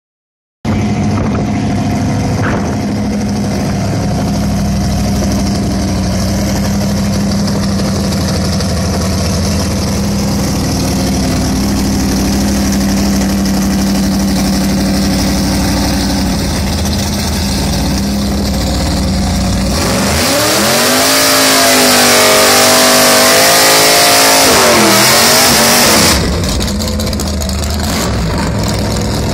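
A vintage drag car's engine idling, then about twenty seconds in revved hard for some six seconds in a burnout, its pitch swinging up and down over the loud hiss of spinning rear tyres, before it drops back to idle.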